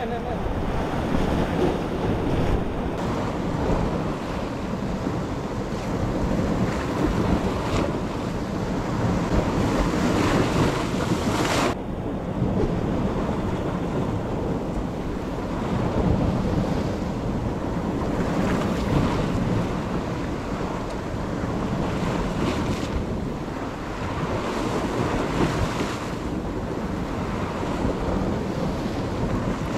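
Sea surf washing and breaking against rocks, swelling and easing, with wind buffeting the microphone.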